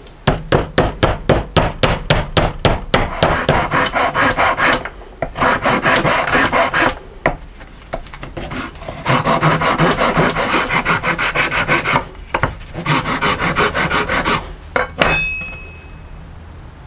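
A steel hand file scraping back and forth across a small piece of wood, shaping it into a wedge. It goes in quick strokes at first, then in several longer runs with short pauses between, and there is a brief ringing tone near the end.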